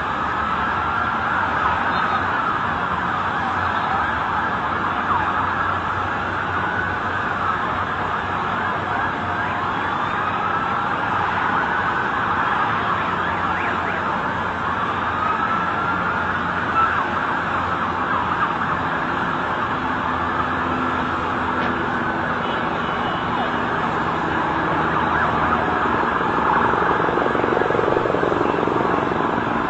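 Several emergency vehicle sirens wailing at once, their pitch rising and falling and overlapping, over a steady background noise.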